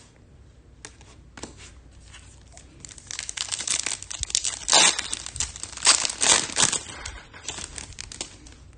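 Foil trading-card pack wrapper crinkling and being torn open by hand, with dense crackling from about three seconds in that fades out near the end, after a few light clicks.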